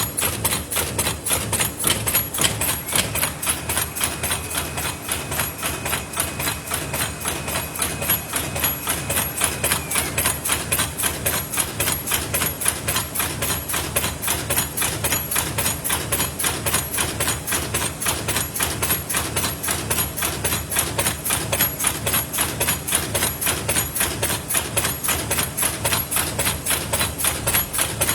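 Paper lid forming machine running, a fast, even mechanical clatter that repeats steadily through its production cycle.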